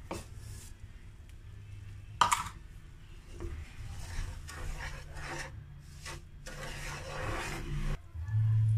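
Wooden spatula stirring and scraping granulated sugar across a nonstick pan, a gritty rubbing in several strokes, with a sharp knock about two seconds in. A low steady hum starts near the end.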